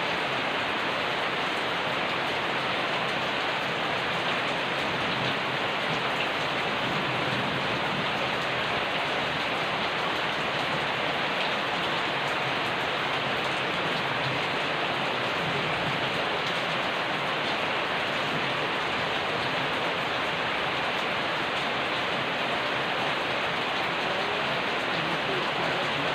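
Steady rain falling, an even hiss of drops hitting a surface, with no change in strength throughout.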